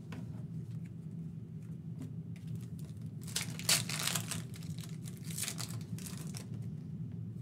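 A foil trading-card pack crinkled and torn open by hand. A few light clicks come first, then dense crinkling from about three seconds in to near the end.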